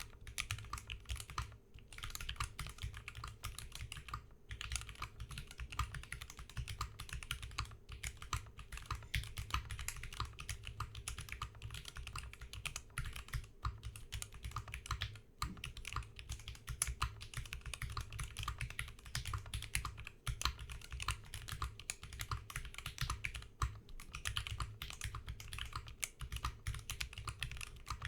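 Typing on a D60 mechanical keyboard with stock NovelKeys Silk Yellow linear switches: a fast, continuous run of keystroke clacks with a few brief pauses.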